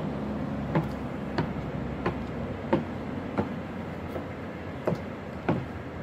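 Footsteps in 8-inch stainless steel stiletto platform heels on hard ground: a sharp heel click about every two-thirds of a second at a steady walking pace.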